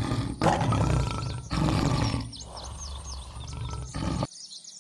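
Lion roaring: loud, deep roars in the first two seconds, easing into quieter low rumbling, with small birds chirping in the background. It cuts off suddenly near the end.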